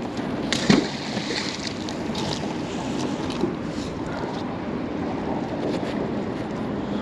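Water sloshing around a small boat with wind buffeting the microphone, and one sharp knock a little under a second in.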